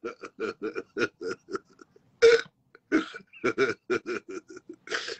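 A man laughing hard in a rapid run of short pulses, broken twice by a sharp breathy gasp, about two seconds in and near the end.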